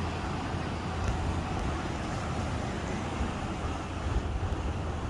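Steady rushing noise of fast-flowing floodwater, with a deep low rumble under it.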